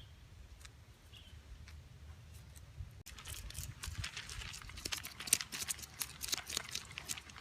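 Wood fire crackling: scattered sharp pops and snaps that grow dense about three seconds in, over a low rumble.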